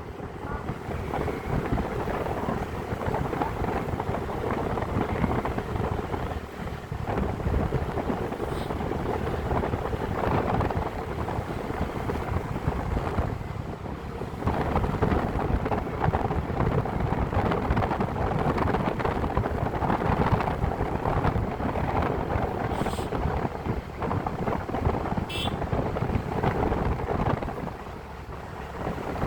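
Wind buffeting the microphone: a steady rushing noise with a low rumble that rises and falls in gusts.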